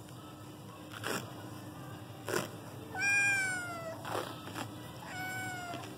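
Kitten meowing twice: a long meow falling in pitch about three seconds in, and a shorter one near the end. A few short rustles come between them as the vet wrap is unrolled and pressed around its splinted leg.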